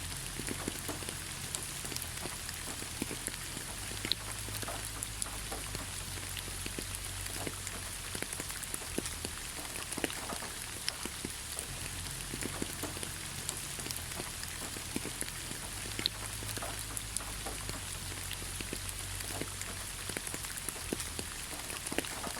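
Rain falling on leaves: a steady patter with many individual drops tapping.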